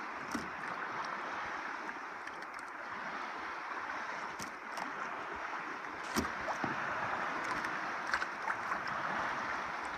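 Small waves lapping and splashing at the water's edge: a steady wash of water with a few sharp taps.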